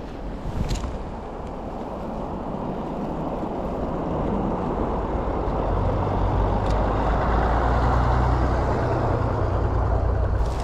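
A heavy road vehicle going by close at hand: its tyre and engine noise grows steadily louder, with a low engine drone coming in about halfway through.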